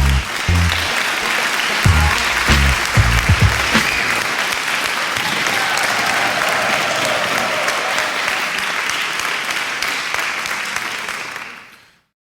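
Music with a beat gives way to steady applause, as at the end of a live music recording. The applause fades out just before the end.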